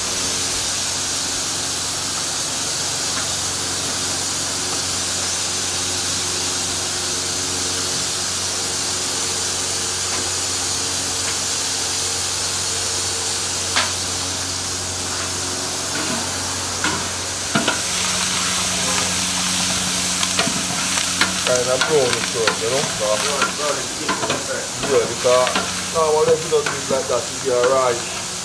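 Jerk chicken sizzling on a hot grill, a steady frying hiss. A voice rises over it in the last several seconds.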